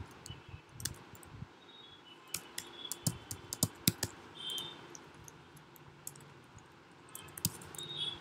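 Computer keyboard typing: irregular short runs of key taps and a few sharper single clicks.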